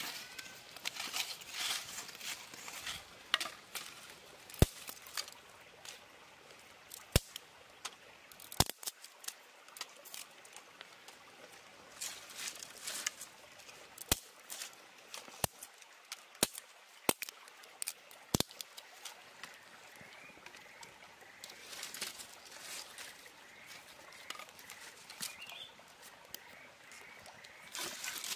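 Dry twigs and sticks being snapped and laid on a stone hearth as kindling: single sharp cracks every second or two, with rustling of dry kindling in between.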